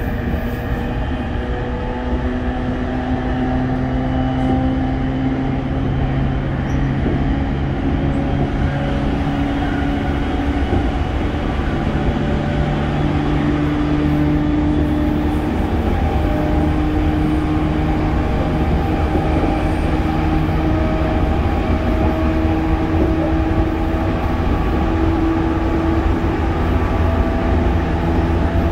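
Running sound of a JR East E231-1000 series electric train heard inside a motor car with Hitachi IGBT-VVVF traction equipment: a steady low rumble of wheels on rail with several held motor tones that shift in pitch in steps, growing slightly louder over the first few seconds.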